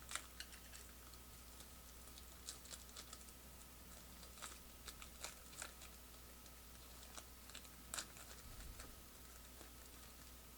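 Faint, scattered clicks and light taps of trading cards being handled and sorted, loudest right at the start and about eight seconds in, over a faint steady hum.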